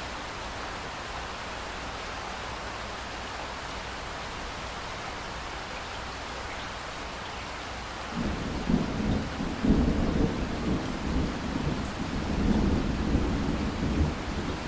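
Steady rain hiss; a little past halfway, a long low rumble of thunder sets in and keeps rolling, swelling and easing, to the end.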